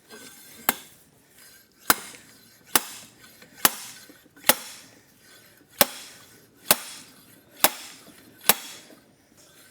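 Hand hammer striking a metal tool on a motorcycle engine, nine sharp ringing blows about a second apart, used to work both hubs off the shaft together.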